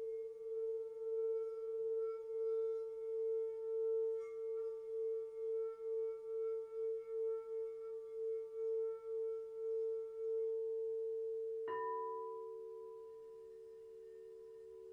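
Crystal singing bowls ringing: one bowl holds a steady, slowly pulsing tone. About twelve seconds in, a light knock sets a second, higher-pitched ring going alongside it.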